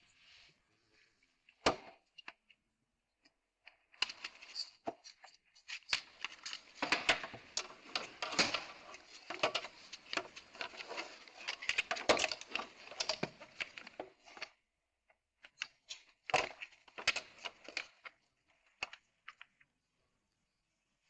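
Small metal parts of a Ford Focus door lock clicking and rattling as they are worked by hand: one sharp click about two seconds in, then a long run of dense clicks and scrapes, and a shorter burst a few seconds before the end.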